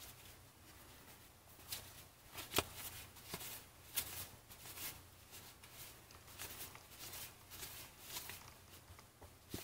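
Faint paper flicks and slides of 1990 Fleer football trading cards being flipped through by hand, one card at a time, with irregular light ticks.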